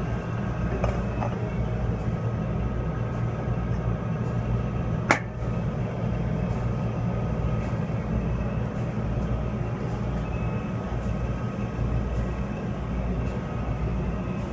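Steady low machinery hum of a working industrial plant, with one sharp click about five seconds in.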